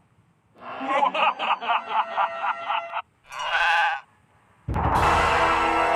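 Facebook Messenger emoji sound effects played one after another: a pitched sound pulsing about four times a second, a short separate burst, then a longer, louder effect starting near the end.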